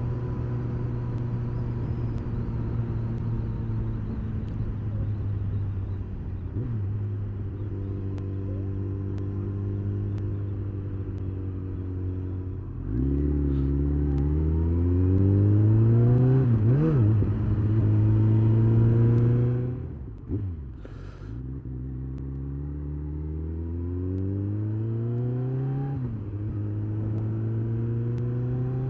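Kawasaki ZZR1400 motorcycle's inline-four engine cruising steadily, then pulling hard about halfway in, its revs climbing and stepping down at gear changes. It goes off the throttle suddenly and then picks up again, the revs rising through the gears.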